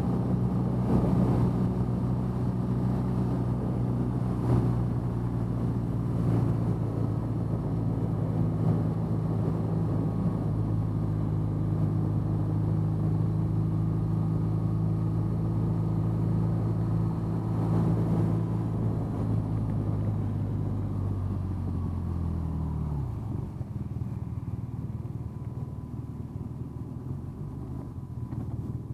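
BMW R nineT's air/oil-cooled boxer twin running at a steady cruising speed, then falling in pitch and dropping to a quieter low rumble about 22 seconds in as the bike slows in traffic.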